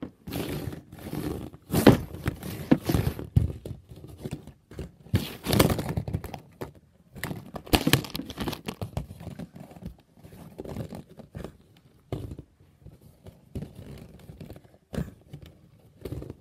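Plastic K'NEX rods and connectors clattering, knocking and scraping as two hand-driven K'NEX battlebots crash into each other on cardboard. The clatter is dense for about the first ten seconds, then thins to a few scattered knocks.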